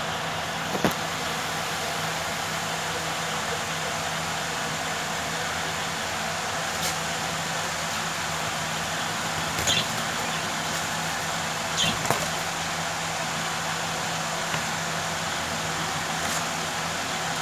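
Steady background hiss with a low constant hum, broken by a few brief faint clicks.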